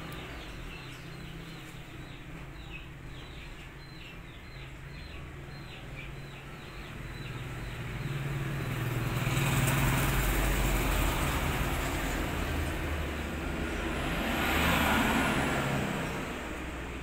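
Passing road traffic: vehicle noise swells from about seven seconds in, peaks twice and fades near the end, over a steady low hum. In the first few seconds a run of short high chirps repeats.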